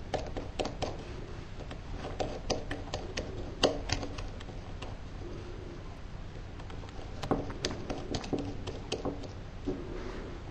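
Irregular small clicks and taps of hands and tools handling the small parts of a Cox model engine during reed valve work. The taps come in clusters, with a quieter stretch in the middle.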